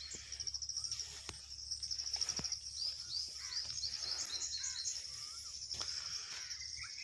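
Outdoor birdsong: many short chirps sliding up and down, over a steady, fast-pulsing high-pitched insect trill. A few soft ticks are scattered through it.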